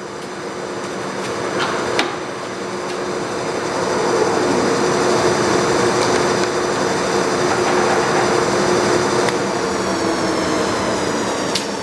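Monarch Series 90 Dyna-Shift heavy-duty lathe running at high spindle speed with its big 28-inch four-jaw chuck: a steady whine of headstock gearing and motor that grows louder over the first few seconds, then holds, with a couple of sharp clicks.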